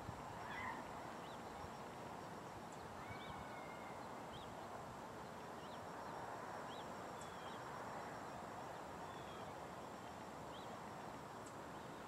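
Steady open-air background noise with scattered short bird chirps and calls.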